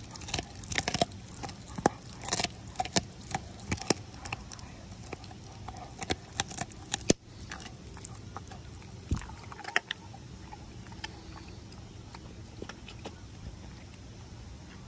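American Pit Bull Terrier biting and chewing raw meat on the bone held in a hand: a run of wet snapping and crunching clicks, thick over the first seven seconds or so, then sparser.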